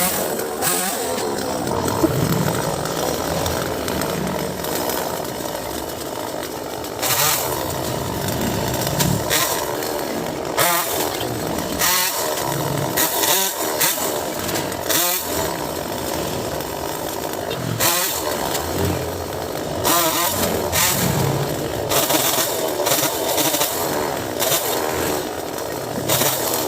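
Chainsaw running and revved up and down again and again, its pitch rising and falling every second or two, as it cuts mango tree wood.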